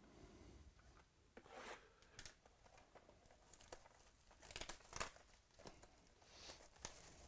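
Faint crinkling and tearing of foil trading-card pack wrappers, with cards being handled in short, scattered rustles.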